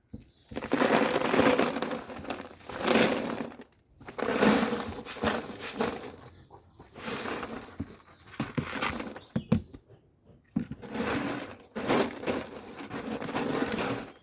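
K1 plastic filter media being tipped from a bag into a pond filter box, the small plastic pieces rattling and rustling against each other in repeated bursts of a second or two.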